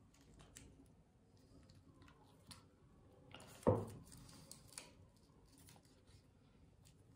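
Quiet handling sounds of edge tape being peeled and pressed onto a table tennis blade: scattered small clicks and rustles, with one louder rustle ending in a knock about three and a half seconds in.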